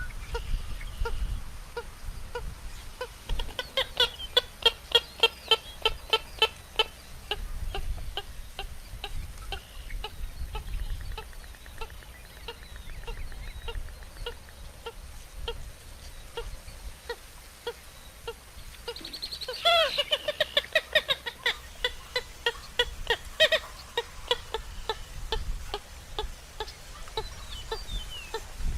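American purple gallinule calling: long runs of rapid clucking notes. The calls swell into louder, cackling bursts about four seconds in and again around twenty seconds.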